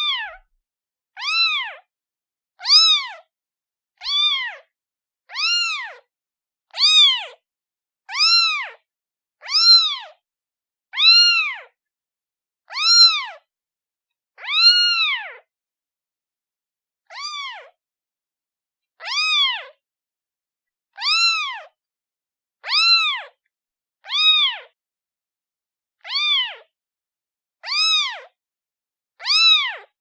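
A kitten meowing over and over, about one high meow every second and a half, each rising then falling in pitch, with silence between them and one longer pause about halfway through.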